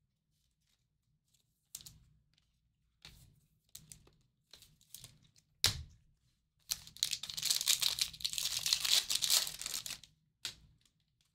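A sealed trading card pack being handled and torn open: several short rustles and a sharper tap, then about three seconds of steady crinkling and tearing of the wrapper, ending in a light click.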